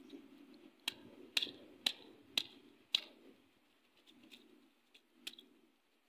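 A hand-held river stone knocking down on garlic cloves laid on a rock, smashing them: five sharp knocks about half a second apart, then two fainter ones near the end.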